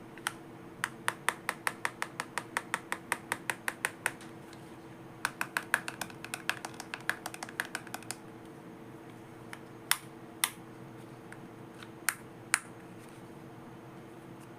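Small sharp clicks from handling plastic toy playset pieces: two quick runs of about six clicks a second, then four single clicks spaced out near the end.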